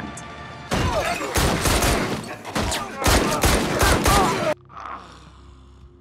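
Film soundtrack gunfire: a long burst of rapid shots lasting about four seconds, with voices mixed in. It cuts off abruptly, and a quiet stretch follows.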